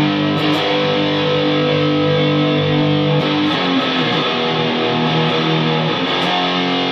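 Electric guitar played through a homemade high-gain tube amplifier built with 1930s AF7 and AL4 valves: distorted held chords, changing about three seconds in and again near the end. The tone is bright and aggressive, from the treble spikes that the tone stack adds.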